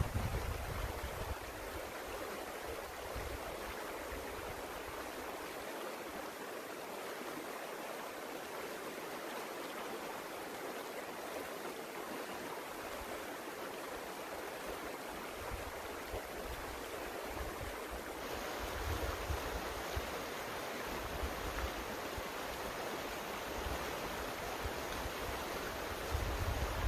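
Small creek running with a steady rush of water, with low rumbles of wind on the microphone now and then.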